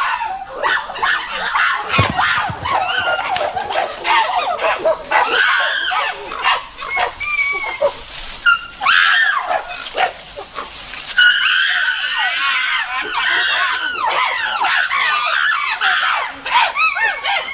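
Chimpanzees screaming during a dominance display and fight among males: many shrill, overlapping cries that rise and fall in pitch, with a thump about two seconds in.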